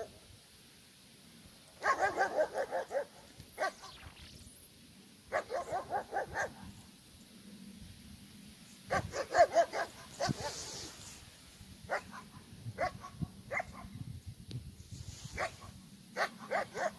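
A dog barking, off and on: three quick runs of barks early and midway, then single barks spaced out near the end.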